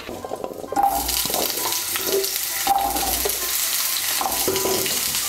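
Raw potato chunks going into hot mustard oil in a kadai, the oil starting to sizzle about a second in and then frying with a steady hiss.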